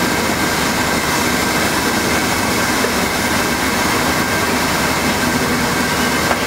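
Hand-held hot air welders for heat-welding TPO roofing membrane, their blowers running steadily with a faint high whine.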